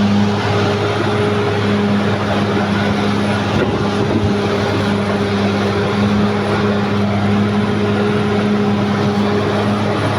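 Caterpillar D6R XL bulldozer's diesel engine running steadily with a constant low hum, with a few faint knocks about four seconds in.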